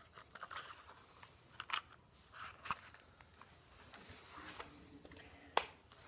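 A Leatherman Leap multitool being worked into a stiff hand-stitched leather sheath: scuffing and rubbing of leather with a few sharp clicks from the metal snap, the loudest shortly before the end.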